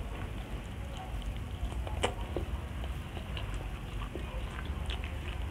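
Close-up eating sounds of fried tilapia and rice: chewing with scattered small mouth clicks and crackles, and one sharper click about two seconds in, over a steady low background rumble.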